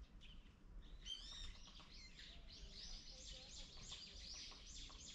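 Faint chirping of small birds: quick series of short, high, arched notes, starting about a second in and repeating several times a second.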